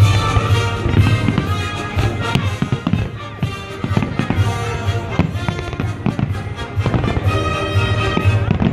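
Fireworks going off in repeated bangs over loud music with a heavy bass.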